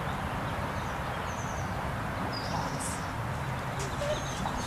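Outdoor background noise, a steady low rumble, with a few faint, short, high bird chirps.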